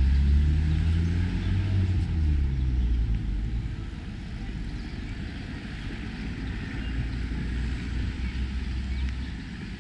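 A motor vehicle passing close by: a low engine rumble, loudest in the first few seconds, then fading into a steady low background rumble.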